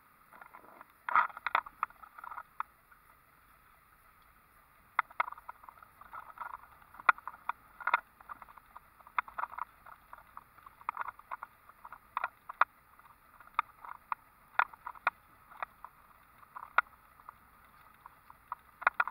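Irregular clicks and rattles from inside a car driving over a bumpy paved road, a few knocks a second coming and going, with a faint hiss between them.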